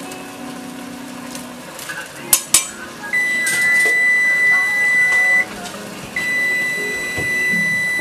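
Two sharp clicks a little over two seconds in, then a kitchen appliance's electronic timer beeping: two long, steady, high-pitched beeps of about two seconds each with a short gap between them.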